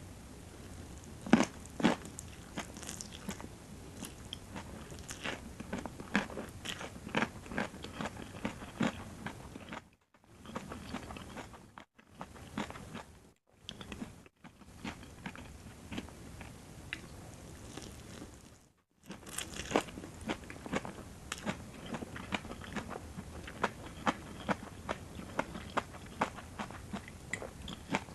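Close-miked chewing and biting of a rice noodle salad with crunchy vegetables: crisp crunches come several times a second, the loudest two bites about a second and a half in. The sound drops out briefly a few times around the middle.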